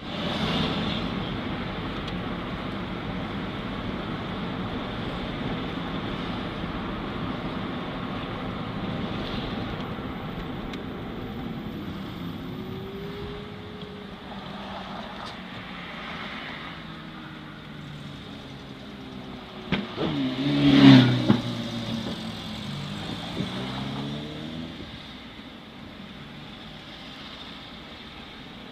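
A car driving in town traffic: steady engine and road noise. About twenty seconds in there is a sharp click, then the loudest moment, a brief swell with pitch that slides up and down before it fades.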